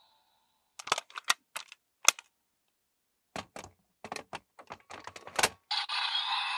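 Hard plastic toy parts clicking and snapping in a quick irregular string: a Wonder Ride Book being closed and pushed into a driver slot, the loudest snap just before the end. About a second before the end the toy's electronic sound starts playing from its speaker.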